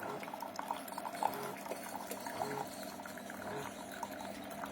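SiFENE single-serve pod coffee maker brewing: hot coffee streaming steadily into a glass mug, with small gurgles and drips throughout.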